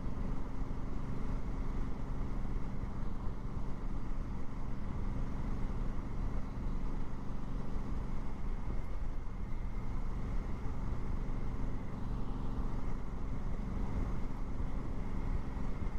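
Honda Africa Twin motorcycle engine running steadily while riding along, heard with road and wind noise. The engine note briefly falls away about halfway through, then picks up again.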